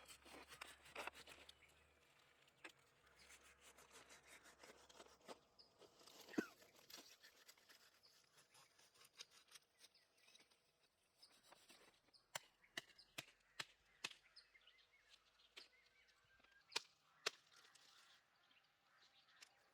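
Quiet stretch with scattered faint clicks and taps, one sharper knock about six seconds in and a run of quick clicks in the second half.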